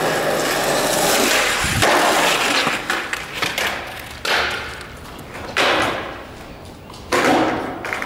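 Skateboard wheels rolling on concrete with a low thud, then three sudden board hits in the second half, each ringing out in an echoing concrete space.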